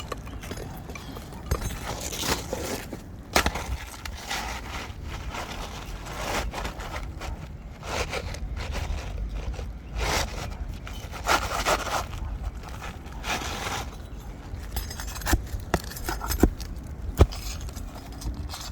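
Asphalt roof shingles being handled and worked loose during a single-shingle replacement: irregular scraping and crackling, with sharp clicks and knocks, the loudest about three seconds in and near the end.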